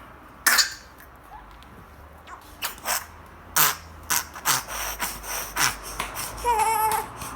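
Four-week-old infant with whooping cough (pertussis) coughing in short, harsh fits that come faster about three and a half seconds in, a paroxysmal run typical of pertussis in a baby, with no whoop. A brief cry breaks out near the end.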